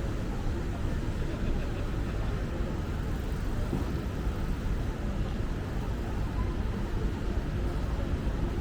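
City street ambience: a steady rumble of traffic and running vehicle engines.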